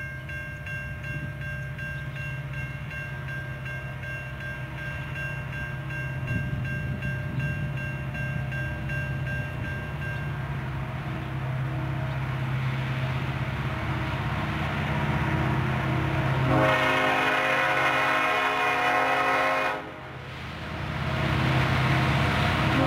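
Approaching freight train led by BNSF SD70ACe diesel locomotives: a low engine rumble grows louder as it nears. Its air horn sounds a long blast about two-thirds of the way in, stops for a moment, then sounds again near the end. A faint high steady ringing is heard during the first half.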